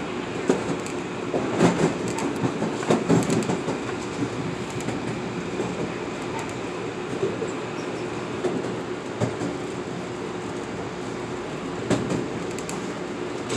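Metro-North M8 electric multiple-unit railcar running at speed, heard from inside the car: a steady rumble with a faint hum, and sharp clacks of the wheels over the track, bunched about two to three seconds in and again near the end.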